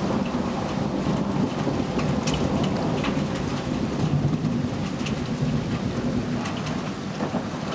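Heavy thunderstorm rain falling steadily, with thunder rumbling low underneath and scattered sharp taps of nearby drops.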